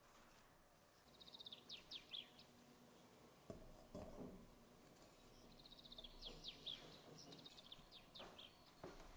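Faint small-bird chirping in quick runs of falling notes, twice, with a few soft knocks and clinks as a metal wire cooling rack is set on a metal tube cake pan and the pan is turned over.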